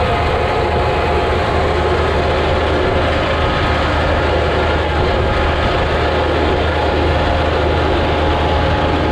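Tractor engine running steadily at constant speed, loud and close. It cuts off suddenly at the end.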